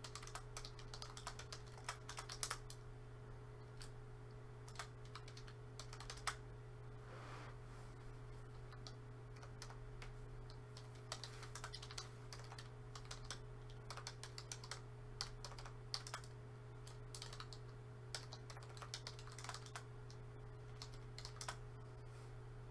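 Computer keyboard typing: faint runs of quick key clicks broken by short pauses, over a steady low hum.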